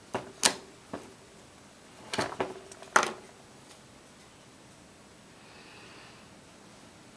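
A handful of sharp knocks and clicks in the first three seconds, the loudest about three seconds in, like objects being bumped or handled on a workbench.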